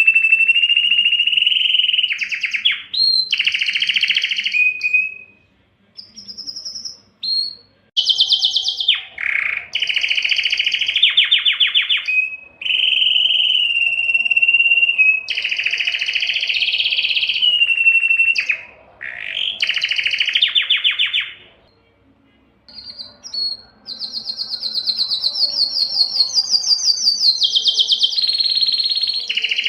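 Spanish timbrado canary singing a long series of phrases: fast rolling trills of rapidly repeated notes alternating with held steady notes, broken by short pauses.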